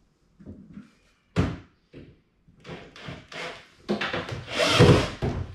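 Knocks and rubbing from fitting a clothes rail and its bracket against a wooden wardrobe panel: one sharp knock about a second and a half in, then a run of clatter and scraping that is loudest near the end.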